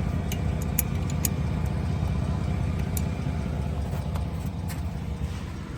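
2012 Jeep Liberty's 3.7-litre V6 running steadily at idle, with a few light clicks over the top.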